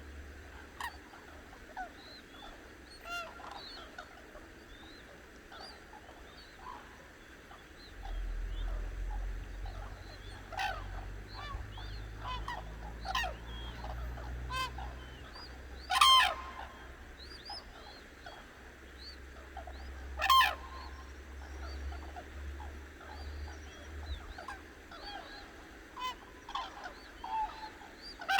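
A flock of cranes calling at dawn: many short overlapping calls, with two loud, ringing calls standing out about halfway through. A low rumble sits underneath through the middle.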